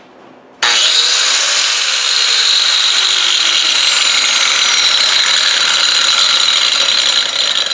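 DeWalt angle grinder switched on about half a second in, its motor spinning straight up to a loud, steady high-pitched whine, then starting to wind down near the end. It runs normally on freshly fitted carbon brushes, the old ones having worn too far to make proper contact.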